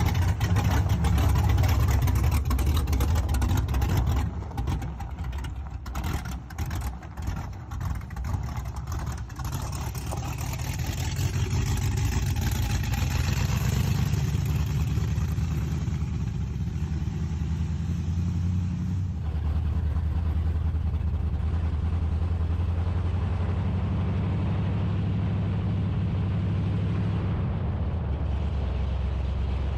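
Second-generation Camaro's engine running as the car is driven. It eases off about four seconds in, then builds back up and settles into a steady cruise.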